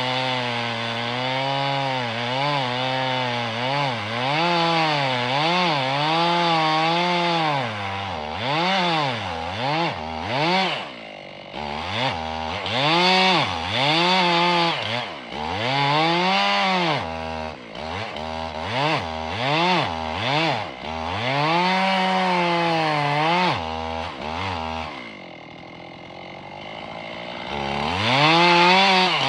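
Two-stroke chainsaw engine revving up and down over and over while cutting a tree, its pitch rising and falling roughly once a second. It drops to a lower, quieter running about 25 seconds in, then revs up again near the end.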